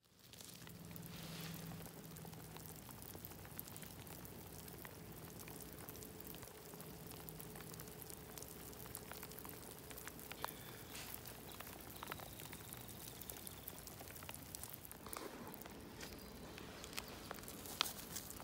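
Faint patter of scattered small ticks over a soft steady hiss.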